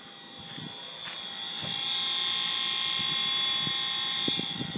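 Fire alarm system horns sounding in continuous mode: a steady high-pitched electronic tone that swells louder about a second in and eases off near the end.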